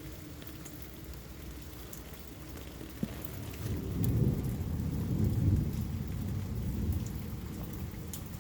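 Steady rain falling, with a sharp click about three seconds in and then a low rumble of thunder that builds over a second, peaks and slowly fades over the next few seconds.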